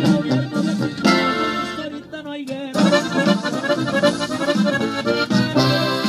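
Accordion playing quick runs of notes with little bass beneath. A short break comes a little over two seconds in, and then a pulsing, rhythmic passage starts.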